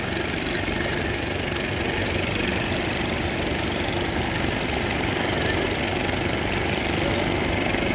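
Motorboat engine running steadily, a constant drone.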